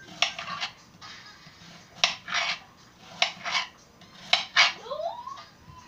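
Large kitchen knife chopping apple pieces on a cutting board: four pairs of quick chops, each a crisp knock of the blade through the fruit onto the board. A short rising squeak near the end.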